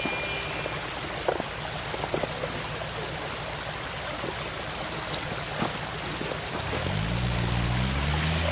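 V8 off-road 4x4 engine idling low under a steady rushing hiss, with a few sharp knocks. About seven seconds in, the engine revs up, its pitch rising and growing louder.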